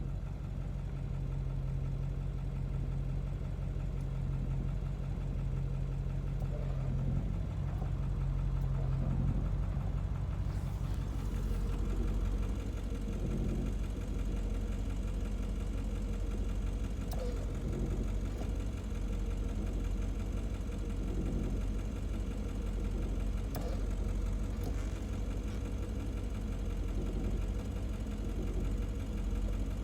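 Ford 7.3 Power Stroke turbo-diesel V8 idling, with a steady low groan over the engine note that stops about nine seconds in, leaving the engine running on.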